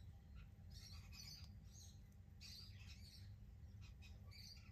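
Near silence over a low steady hum, with faint bird chirps scattered through it.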